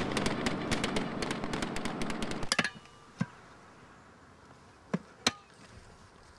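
Rapid crackle of small-arms gunfire, many shots a second, cutting off suddenly about two and a half seconds in. After that, a few single knocks and scrapes of a spade digging in soil around a metal container.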